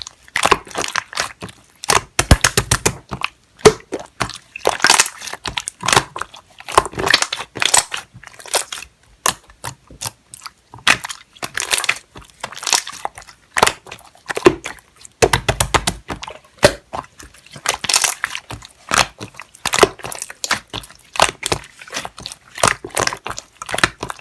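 Hands squishing, stretching and pressing slime, making a constant stream of sticky pops and crackles, with two fast runs of rapid clicking about two seconds and fifteen seconds in.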